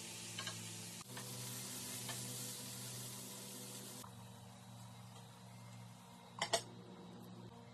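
Food sizzling in a hot pan, the hiss strongest for the first four seconds and then fading, with a steady low tone underneath. Two sharp clicks sound about six and a half seconds in.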